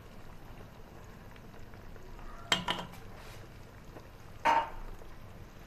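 Kitchenware knocking: a quick double knock about halfway through and a single louder knock near the end, with a short ring after it.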